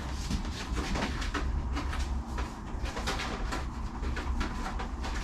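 Clicking and crackling of a hard Lexan RC truck body lined inside with Gorilla Tape as it is handled and turned over, over a steady low hum.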